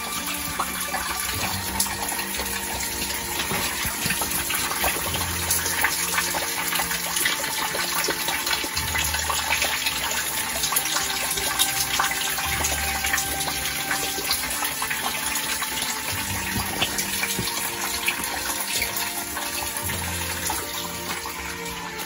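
Small waterfall splashing steadily from a spout onto rocks, a continuous hissing trickle. Under it runs soft music of low held notes that change every few seconds.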